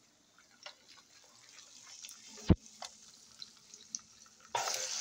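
Eggs frying in hot oil in a pan, with faint scattered crackles and ticks. There is a single sharp knock about halfway through, and near the end the sizzling suddenly turns loud.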